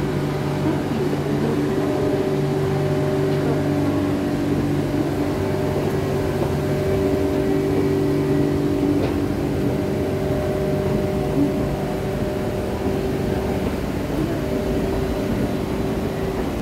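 Bangkok Airport Rail Link electric train at the platform, about to leave for the airport, its motors and onboard equipment giving a steady hum with a few held tones.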